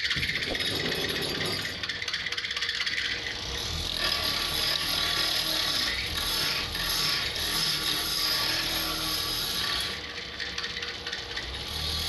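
Wood lathe running with a tool held against the spinning wooden workpiece, a rapid rattling hiss that grows louder from about four seconds in and eases off near the end.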